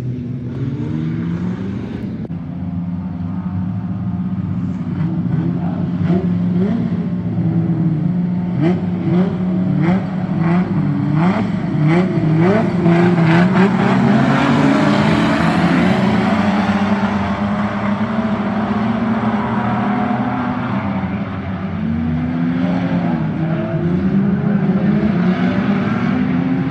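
A pack of standard saloon race cars running on a dirt speedway oval, many engines at once. Their revs rise in repeated overlapping sweeps as the cars accelerate. The sound swells as the pack comes past, eases briefly about three-quarters of the way through, then builds again with more rising revs.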